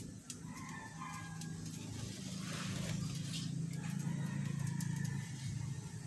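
A passing motor vehicle: a low engine rumble that swells over a few seconds and then eases off. Faint short chirps from budgerigars come over it.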